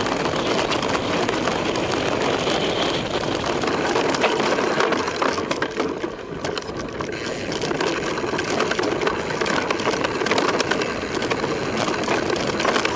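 Mountain bike descending a rocky gravel trail: a constant rattle and clatter of the bike and its mounted camera shaking over the stones, with the tyres crunching on loose gravel.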